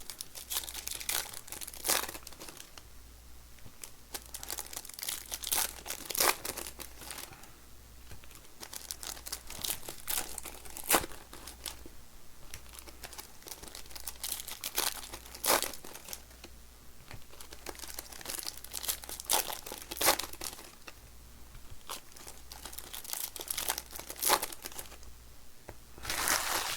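Foil trading-card pack wrappers being torn open and crinkled by hand, an irregular run of sharp crackles and rips.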